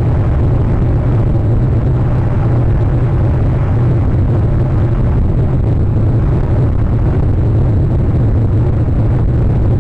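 A steady, loud low rumble with no distinct events.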